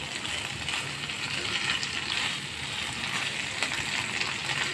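Hilsa pieces in a thick yogurt masala sizzling in a nonstick frying pan, with a silicone spatula stirring and turning the fish through the sauce. The sizzle swells and fades unevenly.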